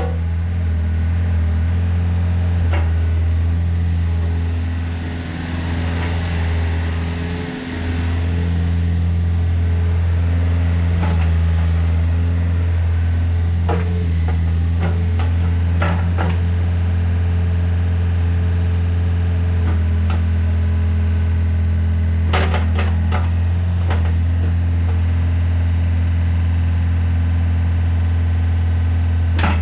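Case CX50B mini excavator's diesel engine running steadily with a deep hum while the boom, arm and swing are worked. A few short clanks come about halfway through and again a little later.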